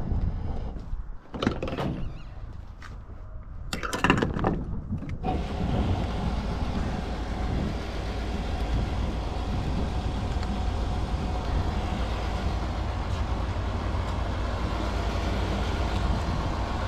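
A few short knocks in the first seconds, then the Nissan 200SX S13's turbocharged CA18DET engine running steadily with a low rumble from about five seconds in, the rebuilt engine on its first short test drive.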